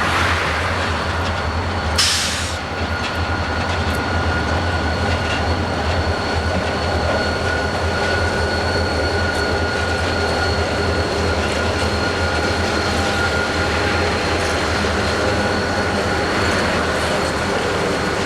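Freight train rolling past, with a steady high squeal from the wheels over a low rumble. A brief hiss comes about two seconds in.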